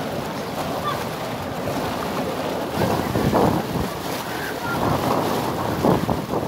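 Wind buffeting a phone's microphone, coming in irregular louder gusts.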